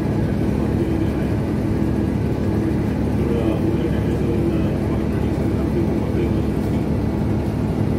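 Steady, dense hum of a ship's engine-room machinery, heard inside the engine control room, with no change in level.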